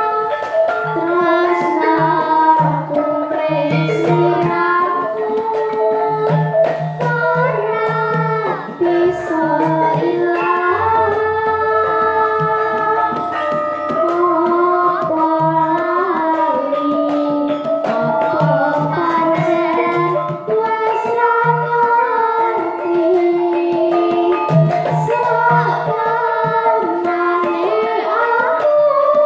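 Live Javanese gamelan music: a girl sings a slow melody into a microphone over sustained gong-chime notes and regular kendang hand-drum strokes.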